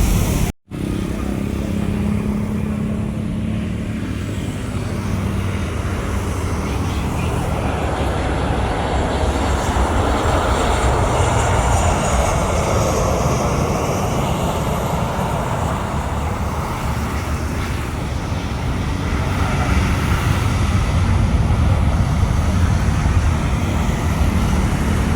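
Airliner passing close by, its engines a steady loud rumble with a high whine that falls in pitch around the middle.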